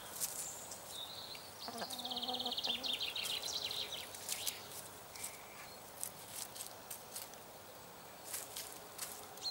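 Domestic hens foraging in dry leaf litter: scattered light scratching and rustling clicks, with a short low cluck about two seconds in. A high, rapid trill, like a small wild bird's, runs briefly at the same time.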